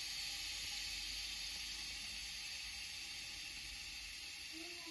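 Trapped air hissing out of the open bleed valve of a shut-off panel radiator, a steady hiss that slowly fades. The trapped air is why the radiator heats only at the bottom.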